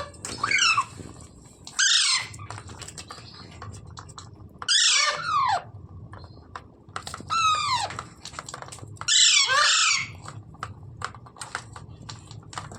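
A pet green parrot screeching in five loud bursts about two seconds apart, each a quick run of sharp, falling notes.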